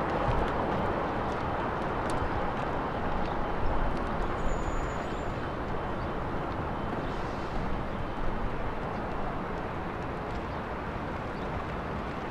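Steady outdoor background noise, an even rushing haze, with a few faint, irregular knocks.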